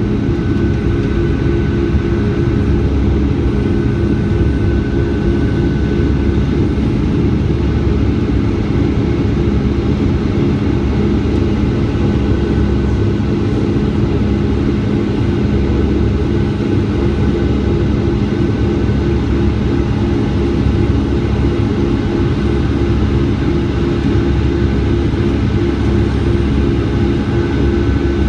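Boeing 757-200 cabin noise from a window seat: a steady jet-engine drone and rushing air, with an even low hum.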